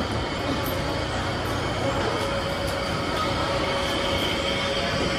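Busy food court din: an indistinct murmur of many voices over a steady mechanical hum, with faint clinks now and then.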